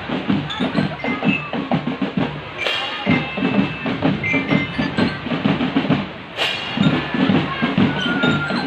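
Marching drum band playing: drums beat a quick, steady rhythm under short, bright bell-like melody notes. Two loud crashes come about three seconds in and again past six seconds.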